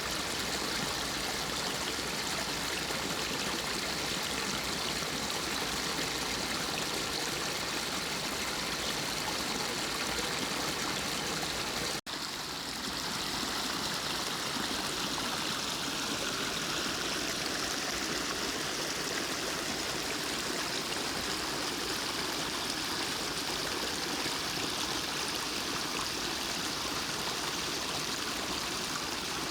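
Forest stream running over rocks, a steady wash of water. The sound breaks off for an instant partway through and resumes with a slightly different character of flowing water.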